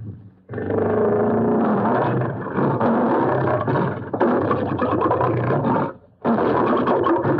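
Lion roaring: a sound effect billed as the extinct Cape lion. One long, rough stretch of roaring starts about half a second in and breaks off just before the six-second mark, then the roaring starts again after a brief pause.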